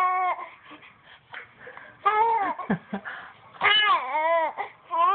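An 11-week-old baby cooing and babbling: several drawn-out, high-pitched vocal sounds, each arching up and down in pitch, with short pauses between them.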